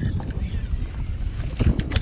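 Wind buffeting the microphone as a steady low rumble over open water, with a few sharp clicks near the end.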